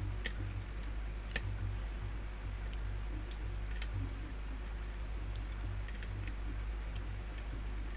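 Lock pick and tension wrench working the pins of a challenge pin-tumbler lock: a few scattered faint clicks and ticks over a steady low hum.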